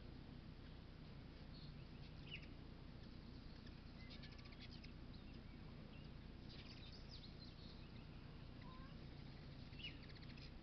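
Ruby-throated hummingbirds at sugar-water feeders: faint high chips and short rapid chattering ticks, several times over, above a low steady background hum.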